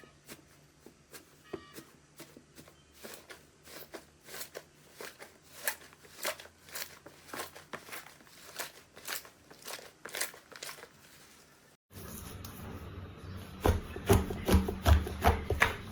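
Slime being squeezed and worked by hand, giving a steady run of crisp crackles and pops about twice a second. About twelve seconds in it cuts abruptly to a much louder passage with low thuds.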